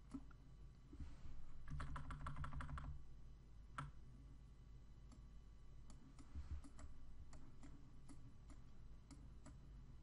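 Computer keyboard and mouse clicks: a quick run of about ten taps a couple of seconds in, then single clicks every second or so.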